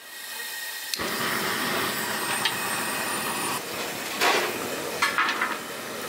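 Cast-iron LPG stove burner being lit: a faint hiss of gas, then it catches about a second in and runs with a steady rushing flame noise. A few metal knocks follow as a large iron kadai is set on the stove frame.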